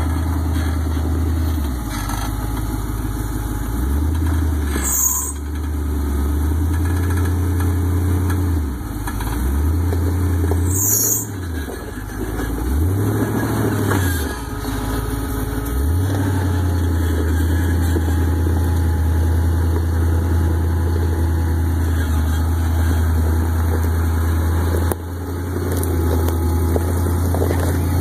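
Jeep Wrangler's engine running at low revs as it crawls up a rocky climb, the revs rising and falling several times in the middle, then holding steady.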